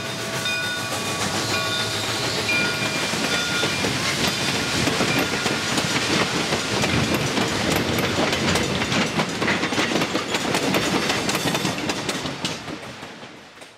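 A train running, its wheels clacking over rail joints, with a steady pitched tone in the first few seconds; the sound fades out near the end.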